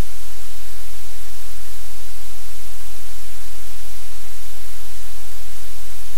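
Loud, steady static hiss with a low hum underneath, covering any room sounds.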